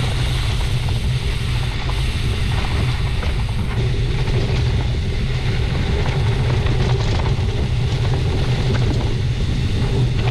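Wind buffeting the microphone and gravel-bike tyres rolling over loose gravel while riding, a steady rumbling noise with scattered small ticks from stones.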